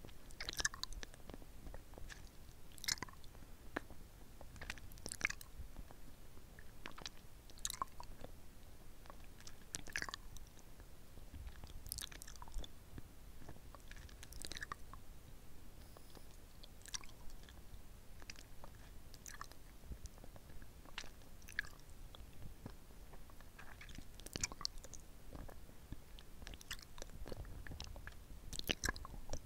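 Close-miked wet mouth sounds of a hard-candy lollipop being sucked and licked: irregular sticky smacks and clicks of lips and tongue on the candy.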